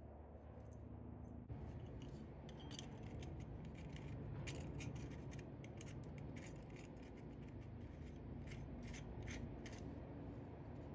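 Threaded metal lamp socket being screwed together by hand: a run of short, irregular scraping clicks of metal threads and handling, starting about two seconds in, over a low steady hum.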